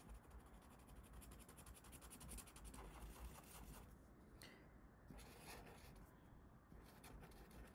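Black felt-tip marker drawing on paper: faint, rapid scratchy strokes, dense for the first few seconds, then a few shorter strokes with pauses between.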